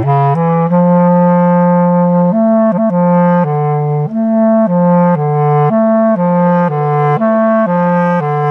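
Bass clarinet playing a slow, low solo melody, its sustained notes swinging back and forth between neighbouring pitches, with a quick ornament about three seconds in.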